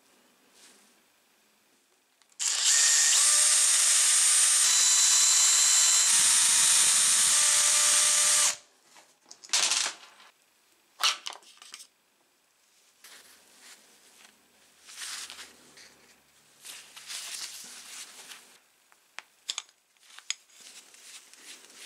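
Cordless drill-driver running for about six seconds at a steady speed that steps up or down twice, backing screws out of an angle grinder housing. It stops suddenly and is followed by sharp clicks and the rattle of metal parts being handled.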